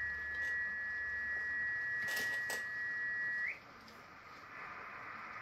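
Steady whistle-like heterodyne tone of a carrier in the shortwave transceiver's speaker, on the 20 m ham band. About three and a half seconds in it slides up briefly and cuts off, leaving the receiver's band hiss. Two short clicks come a little after two seconds.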